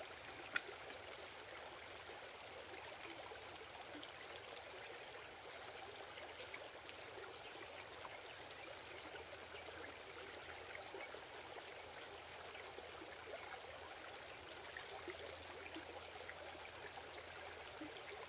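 Faint, steady outdoor background hiss with a thin high steady tone over it, broken by one sharp click about half a second in and a few small scattered ticks.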